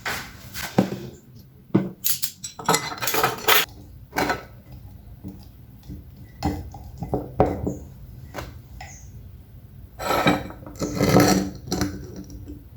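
Kitchen dishes and cutlery clattering: a string of clinks and knocks, with two longer spells of busy handling, one a couple of seconds in and one about ten seconds in.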